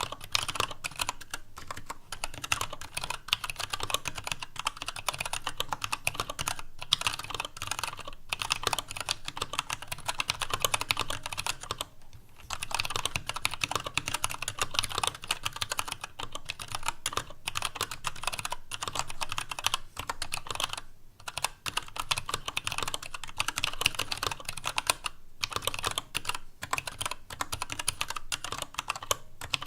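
Fast, continuous typing on a TADA68 65% mechanical keyboard with Gateron Brown tactile switches, dye-sub PBT Cherry-profile keycaps and a stainless steel plate in a mostly empty ABS case, which gives the keystrokes a hollow sound. A low desk noise runs under the clicks, and the typing pauses briefly about twelve and twenty-one seconds in.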